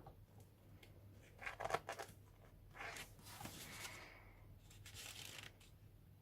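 Paper pages of a book being turned and handled: soft rustles about one and a half and three seconds in, then a longer faint slide of paper.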